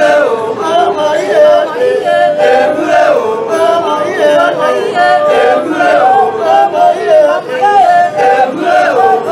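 A group of people singing unaccompanied, several voices in different parts at once, with steady hand clapping.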